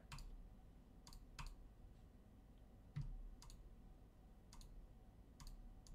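Faint, scattered clicks, about seven in six seconds, over quiet room tone.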